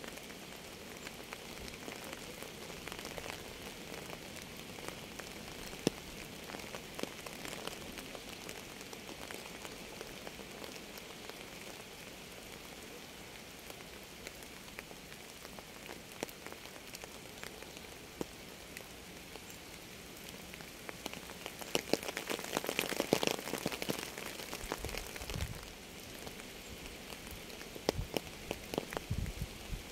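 Rain falling steadily on a surface, with single drops ticking sharply here and there. It comes down harder for about three seconds some three-quarters of the way through, then eases off suddenly.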